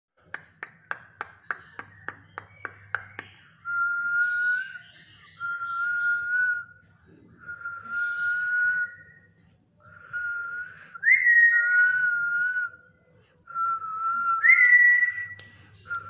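A quick run of about a dozen sharp clicks, then a black-capped lory whistling a series of held notes about a second long each, two of them starting with a sharp rising squeak.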